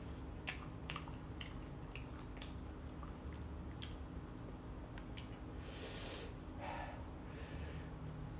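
Close-up eating sounds: chewing with small wet mouth clicks and lip smacks on sauce-covered fried chicken, then a few sharp sniffing breaths through the nose about two-thirds of the way through, from eating extremely spicy Samyang sauce.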